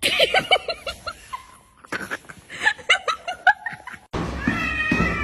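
Laughter in quick runs of short 'ha-ha' bursts, one in the first second and another from about two seconds in. It cuts off abruptly about four seconds in and music starts.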